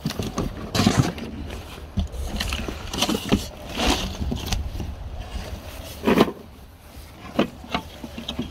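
Plastic body of an Ozito 36V cordless lawn mower and its cardboard box being handled: a string of scrapes, rustles and knocks as the mower is lifted out onto grass and its battery compartment cover is opened, the loudest knock about six seconds in.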